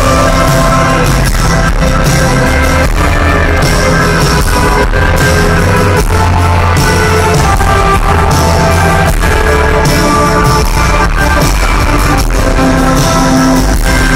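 Live rock band playing loud in an arena, heard from the crowd: guitars, bass and drums with a singer's voice.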